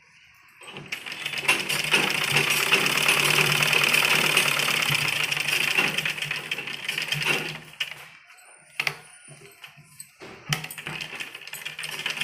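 Black Gulzar sewing machine stitching steadily through folded cotton fabric, then stopping after about seven seconds. Scattered light clicks and knocks follow as the fabric and the machine's hand wheel are handled.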